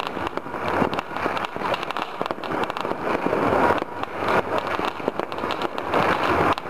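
Many fireworks and firecrackers going off at once at a distance: a continuous din of overlapping crackles and pops.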